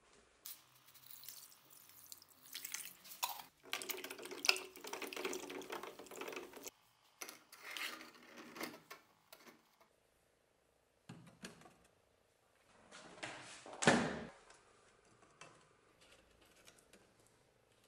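Water being poured and sloshing in a cut plastic bottle, with knocks and clicks as it is handled. Near the end comes one louder knock.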